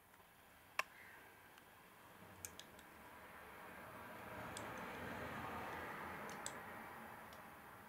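Faint camera handling noise: a few sharp clicks, the loudest about a second in, over a soft rustling hiss that swells in the middle and fades near the end.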